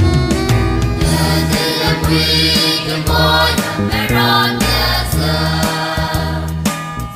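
Recorded music laid over the pictures: a choir singing a hymn-like song over instrumental accompaniment, with a bass line that moves about once a second.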